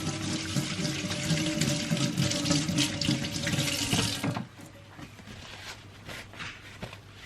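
Tap water running into a sink while hands are washed under it, with a faint steady whine in the flow; the tap is shut off about four seconds in, leaving a few small clicks.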